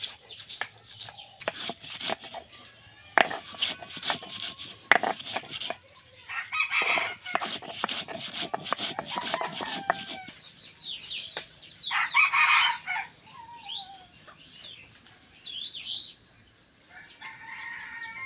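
Spices being ground on a flat stone slab with a hand-held grinding stone: repeated scraping and knocking strokes, which stop about ten seconds in. A rooster crows and chickens and small birds call, loudest about seven and twelve seconds in.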